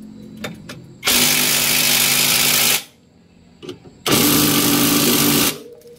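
Cordless impact wrench hammering on a bolt under a car, in two loud bursts of about a second and a half each, with a few small clicks between them.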